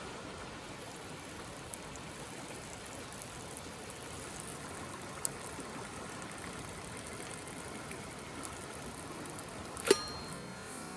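Steady hiss of cooking over a wood fire, with a few scattered crackles and one sharp metallic clink near the end that rings briefly.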